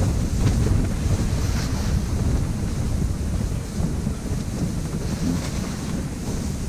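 Wind buffeting the microphone inside an ice-fishing tent: a steady low rumble that doesn't let up.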